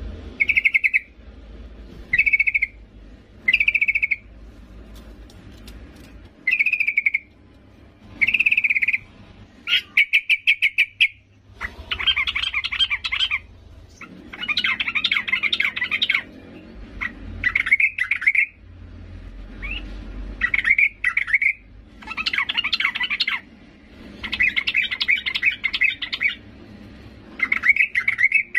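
Female yellow-vented bulbul calling: short bubbly phrases about every two seconds, then longer, quicker chattering runs from about twelve seconds in. A fast rattle of ticks comes just before the runs begin.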